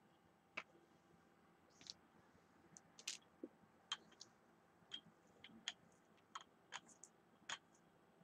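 Faint, irregular clicks and small taps, about a dozen scattered sharp ticks, from craft tools and paint supplies being handled on a worktable.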